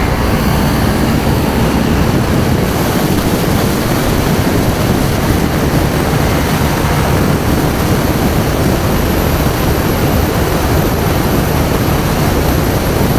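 Steady wind and road noise on the microphone of a motorcycle riding at speed, with the engine running underneath, level and unchanging.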